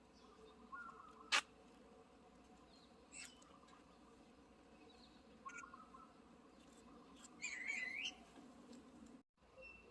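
Faint outdoor bird chirps and calls, with one sharp click about a second in and a louder wavering call near the end.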